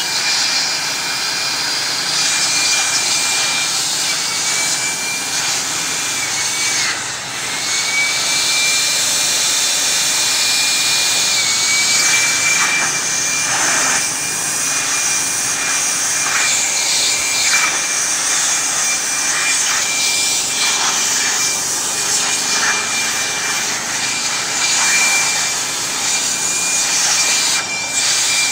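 Handheld electric air blower running steadily at full speed, a loud rush of air with a high motor whine that dips briefly in pitch a few times. The air is being blown over a photocopier's paper-feed roller assembly.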